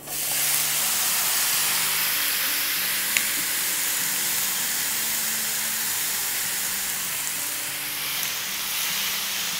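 Marinated chicken strips with sliced onion and bell peppers hitting a hot nonstick frying pan and sizzling hard. The sizzle starts suddenly as the food goes in and holds steady, with a single light click about three seconds in.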